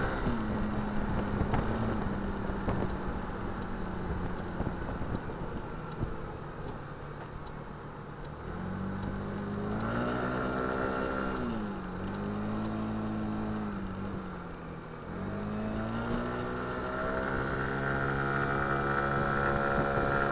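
Kymco Dink Street scooter's warm single-cylinder engine under way: steady at first, then rising and falling in pitch three times in the second half as the throttle is opened and eased, with wind rushing over the microphone.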